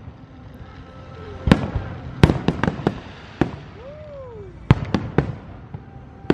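Aerial fireworks shells bursting overhead: about ten sharp bangs in irregular clusters, several packed close together between about one and a half and three seconds in, more around five seconds, and one at the very end.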